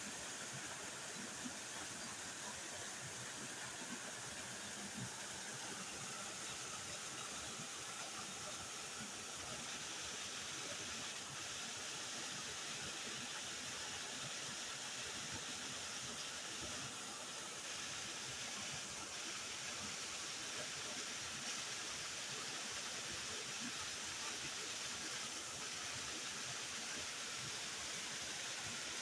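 Waterfall: water falling and rushing steadily, a constant even hiss with no breaks.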